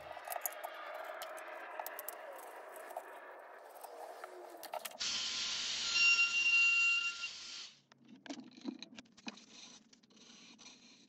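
Wood and metal clamps scraping and clicking as they are handled. Then, about five seconds in, a compact trim router runs for about three seconds with a steady whine, trimming the wooden tray's edge with a flush-trim bit, and cuts off sharply. After that come short, irregular scratching strokes of hand sanding.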